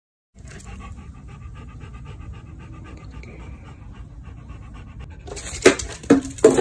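Cane Corso panting rapidly in quick, even breaths. Near the end a run of louder sharp knocks and scuffs breaks in.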